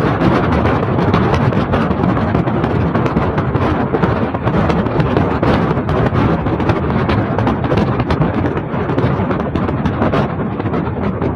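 Wind buffeting the microphone as it rushes past an open window of a moving car, mixed with tyre and road noise on a rough, wet road. It is a loud, steady rumble with frequent crackles and knocks.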